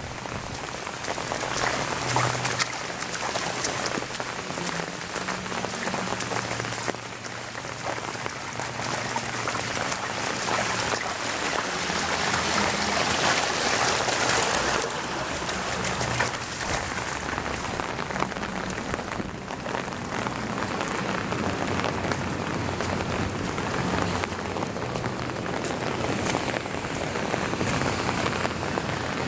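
Heavy rain pouring down steadily, swelling louder for a few seconds near the middle.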